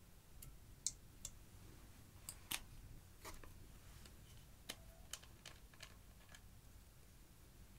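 Scattered small clicks and taps of plastic makeup bottles, caps and tubes being handled, uncapped and set down, about a dozen in all, the sharpest about a second in and again about two and a half seconds in.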